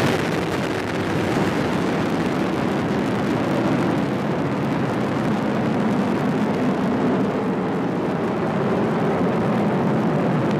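Atlas V rocket's RD-180 main engine and two solid rocket boosters firing during the climb just after liftoff: a steady, deep rumble of exhaust noise.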